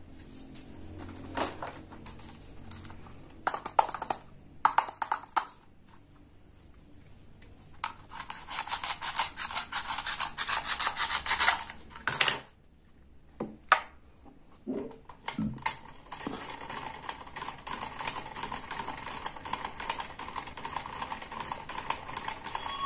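Toy kitchen play: plastic pieces click and tap, then a plastic toy fruit is sawn apart with a toy knife, its velcro-joined halves ripping with a long scratchy rasp. From about 16 s in, a small battery toy hand mixer runs with a steady whirr.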